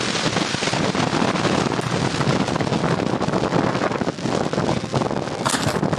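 Wind buffeting the microphone: a steady, loud rushing noise with one brief sharper burst near the end.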